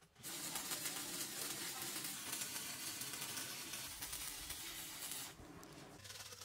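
Electric arc welding: the arc gives a steady crackling hiss that starts just after the beginning and stops about five seconds in.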